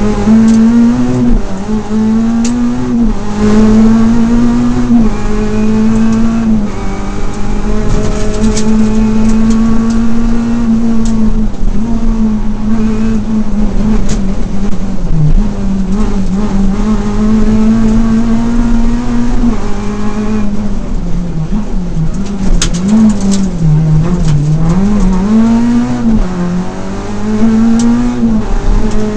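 Renault Clio RS rally car's four-cylinder engine heard from inside the cabin, driven hard at racing pace, its pitch climbing and dropping again at each gear change. A few short sharp clicks cut through the engine noise.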